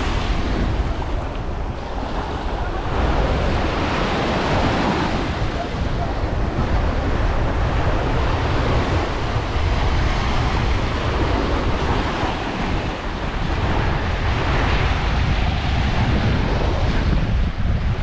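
Waves breaking and washing up a sandy beach, swelling every few seconds, with wind buffeting the microphone in a steady low rumble.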